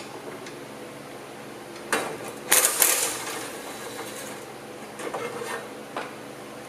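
Cordless impact driver on a socket extension running in short bursts to back out a 10 mm bolt from the bumper's support bracket: a brief start about two seconds in, a louder run of under a second, and another short run about five seconds in. A single metal clink follows near the end.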